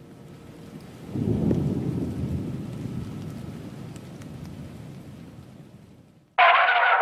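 A deep, low rumbling sound effect that swells about a second in and slowly dies away over several seconds. Near the end a loud, harsh burst of noise starts suddenly and cuts off about a second later.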